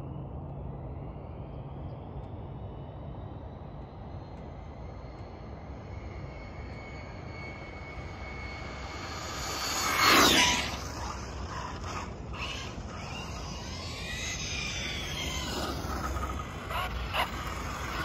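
Arrma Felony 6S brushless electric RC car's motor whining as it speeds up and approaches, rising to its loudest as it passes about ten seconds in. After that come shorter rising and falling whines and a few quick throttle bursts as it comes back close.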